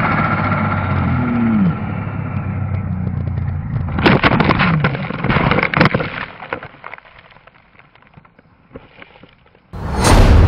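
Snowmobile engine running at speed, dropping briefly in pitch. About four seconds in it gives way to a loud rush and a clatter of knocks as the sled crashes through trees into deep snow, then the noise fades low. Near the end a sudden loud bang-like sound effect sets in.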